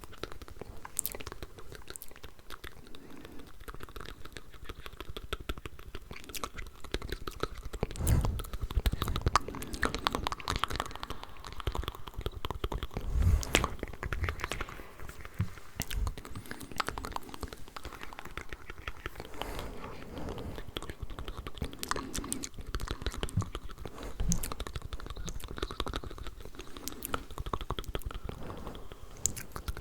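Layered ASMR mouth sounds recorded close to the microphone: a dense run of many quick clicks and smacks, louder for a stretch about eight seconds in and again around thirteen seconds.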